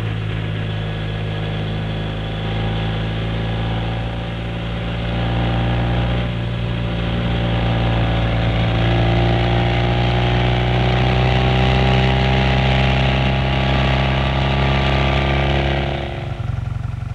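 Yamaha TX750 air-cooled parallel-twin motorcycle engine running steadily with a deep, even drone. Its pitch edges slightly upward in the second half, and the sound cuts off suddenly about a second before the end.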